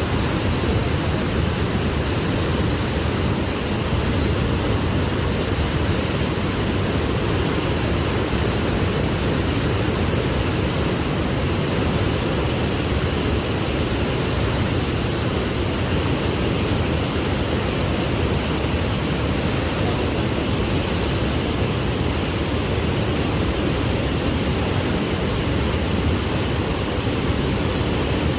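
Waterfall rushing steadily and loudly, an unbroken roar of falling water.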